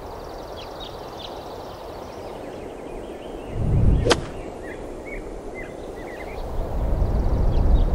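Outdoor ambience: small birds chirping over a steady hiss, with wind rumbling on the microphone. About four seconds in, a short swell of rumble ends in a sharp click, and the rumble builds again near the end.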